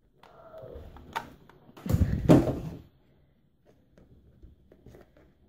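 A hot glue gun is set down on a table with a short clatter about two seconds in, the loudest sound here. Around it are light rustles and small taps from hands pressing ribbon onto a bowl.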